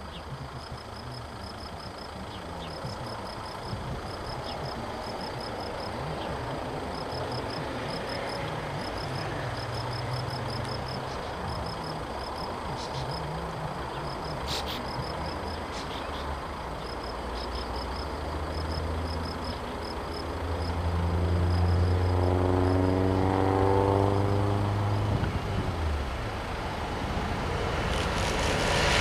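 Class 66 diesel locomotive approaching with a long freight train, its two-stroke EMD V12 engine growing steadily louder. The engine note is strongest a few seconds before the end and then drops in pitch, and the rumble of wheels on rail starts near the end.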